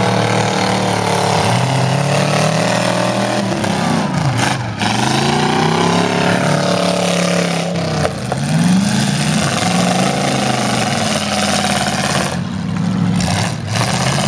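Several demolition-derby pickup truck engines revving hard, their pitch rising and falling again and again as the trucks accelerate and back off. There is a brief knock about eight seconds in.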